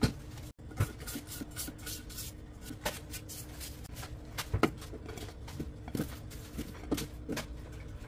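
Cucumber slices and lemon pieces tipped off a plate, dropping and knocking into a Thermomix's steel mixing bowl, with scattered handling clicks over a faint steady hum.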